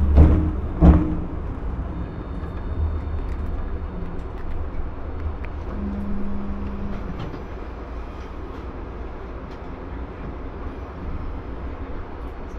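Hiroshima Electric Railway streetcar heard from inside the car: a steady low running rumble, opened by two loud clunks a little under a second apart, with a short steady hum about halfway through.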